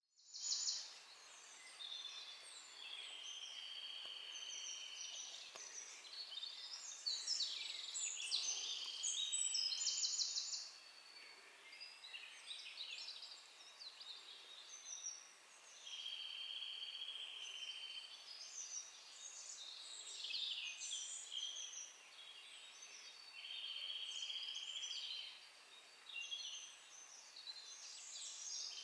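Small songbirds singing: a run of varied high phrases, with a steady trill lasting about a second and a half that comes back several times.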